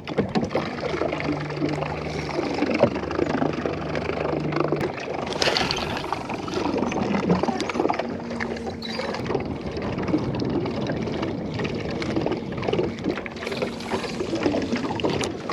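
Background music with held notes, over a steady haze of outdoor noise.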